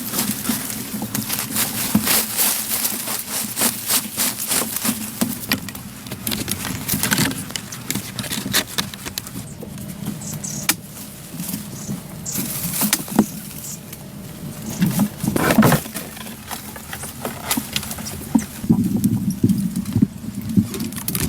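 Irregular knocks, taps and scraping of hands-on work, with a louder scrape or thump about fifteen seconds in.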